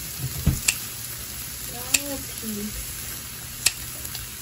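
Marinated meat sizzling steadily on an electric contact grill. Metal tongs and kitchen scissors click sharply against the grill plate three times as the strips are cut and turned.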